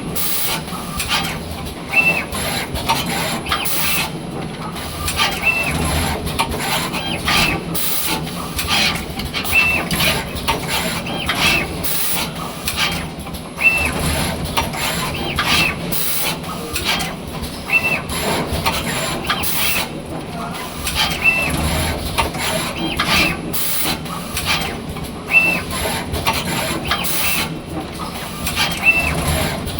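Automatic wire soldering machine running through its cycle: repeated mechanical clicks over a steady hiss, with a short high tone about every two seconds.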